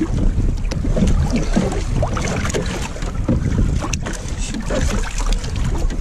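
Strong wind buffeting the microphone, with water sloshing and splashing against the hull of a capsized sailing dinghy.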